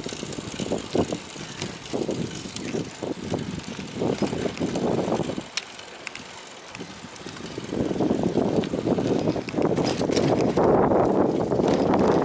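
Wind buffeting the microphone and tyre and road noise while riding along a road. The noise drops for a moment around the middle, then gets louder again.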